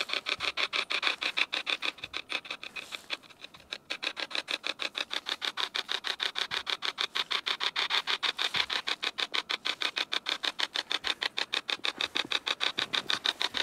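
Hacked radio spirit box ('hack shack') sweeping rapidly through stations: an even, fast chopping of radio static, several bursts a second, that dips briefly about three seconds in.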